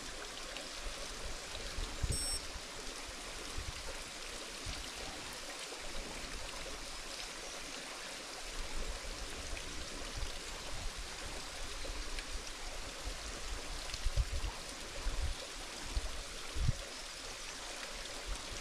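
Steady rushing hiss of a mountain stream running, with a few low thumps near the end and a short high chirp about two seconds in.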